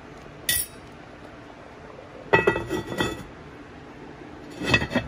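The lid of an enamelled Dutch oven clinking against the pot as it is set on: a small click, then a cluster of clattering knocks, and one more short clatter near the end.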